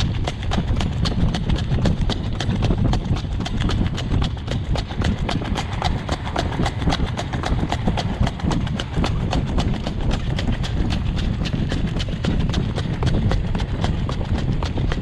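A trotting horse's hooves striking the road in a rapid, even rhythm, several beats a second, over a steady low rumble.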